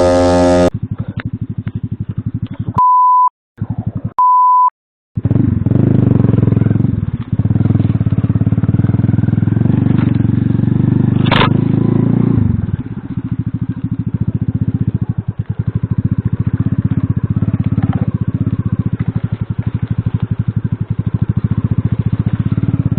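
Small Alfa moped engine running hard and revving over rough ground, loudest in the first half and easing off a little about halfway through. Two short, steady beep tones come early on.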